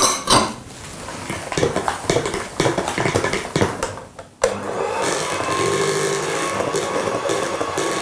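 Electric hand mixer whipping meringue in a plastic bowl as grated chocolate is beaten in. For about the first four seconds the sound is uneven and clattery; after a brief drop, the motor runs with a steady whir.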